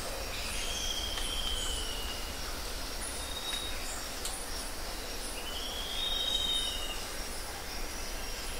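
Long, high whistling animal calls, one sliding down in pitch and a later one sliding up, over a chorus of high pulsing insect calls, with a low wind rumble on the microphone.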